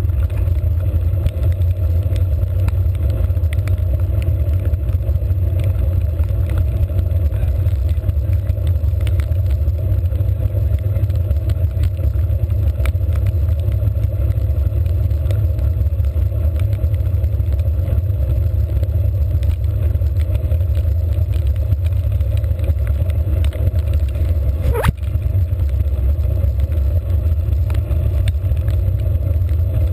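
Steady low rumble of wind buffeting and road noise picked up by a handlebar-mounted GoPro while cycling at speed, with one sharp click near the end.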